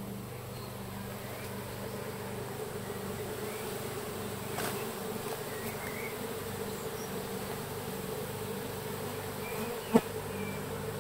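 A disturbed honey bee colony buzzing steadily as the bees are scooped by hand into a hive box. A single sharp knock sounds about a second before the end.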